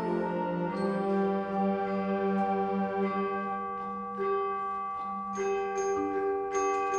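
School wind ensemble playing a slow passage of sustained chords, with struck, ringing mallet-percussion notes coming in over them in the second half.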